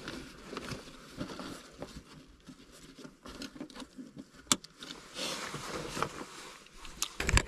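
Backpack and jacket fabric rustling while a backpack is lifted onto a wall hook and its straps handled, with scattered light clicks and knocks. There is a sharp click about four and a half seconds in.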